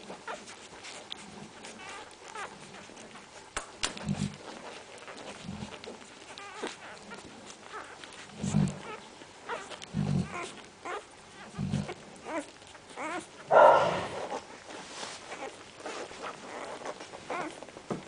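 Central Asian Shepherd Dog puppies vocalising: short, low sounds repeated every second or two, with many small clicks between them. One louder, higher cry comes near the end.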